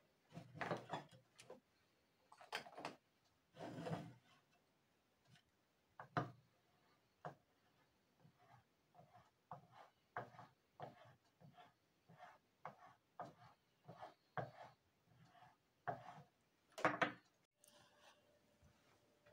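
A small hand-made metal planer scraping over the face of a wax carving block in short strokes, about one to two a second, smoothing the surface. A few longer, louder strokes come in the first few seconds and again near the end.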